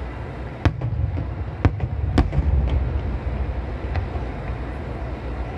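Aerial firework shells bursting overhead: a quick string of sharp bangs in the first three seconds, loudest about a second and a half and two seconds in, then one more about four seconds in, over a steady low rumble.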